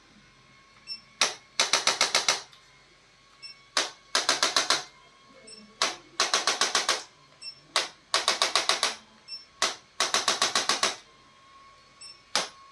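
Repeated clicking in a regular pattern: a single sharp click, then a quick run of about eight clicks, the cycle coming round about every two and a half seconds, with a faint steady tone in between.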